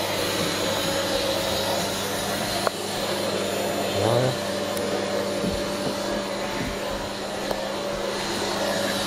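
Vacuum cleaner running with a steady motor hum and whine. A short rising sound about four seconds in and a few light knocks.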